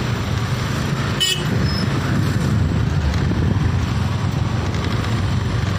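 Road traffic heard from a motorcycle riding through a traffic jam: a steady low rumble of engines and road noise, with a short high-pitched toot about a second in.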